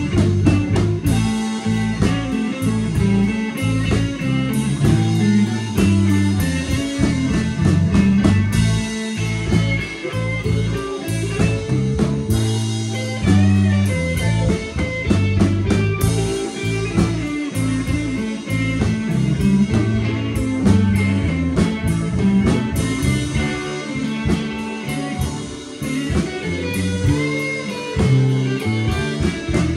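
Live electric blues band playing: electric guitars over a low bass line and drum kit, with a blues harmonica player joining in.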